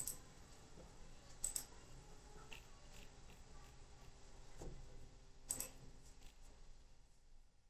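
Computer mouse clicks, a few scattered and sharp, some in quick pairs, over faint room noise.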